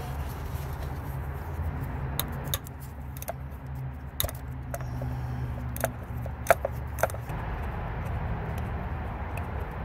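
Scattered sharp metallic clicks and clinks of a ratcheting wrench and a small timing-cover bolt being worked loose by hand, about eight in all, loudest in the middle, over a steady low hum.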